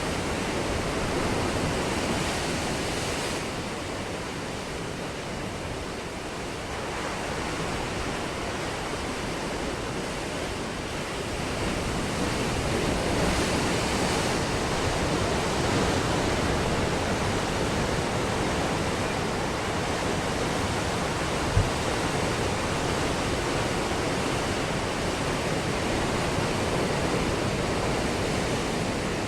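Ocean waves breaking on a beach: a continuous wash of surf that swells and ebbs over several seconds. There is one brief low thump about two-thirds of the way through.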